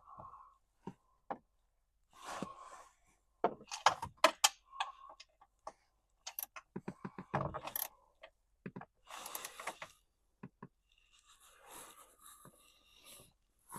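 Irregular metallic clicks, clinks and scrapes of bolts and hand tools being handled, with a quick run of sharp clicks about four seconds in.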